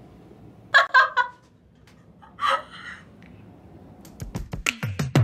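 Two brief sounds about one and two and a half seconds in, then from about four seconds in a rapid series of clicks with sliding low tones: an editing transition sound effect running into electronic background music near the end.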